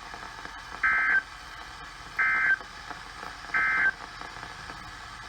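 Three short bursts of Emergency Alert System (SAME) end-of-message data tones from NOAA Weather Radio, each about a third of a second long and about a second and a half apart, over steady radio hiss. This is the EOM signal that closes the warning broadcast.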